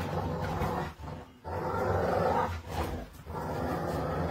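Dog growling in several rough bursts with short breaks between them while it bites and tugs at a machete blade.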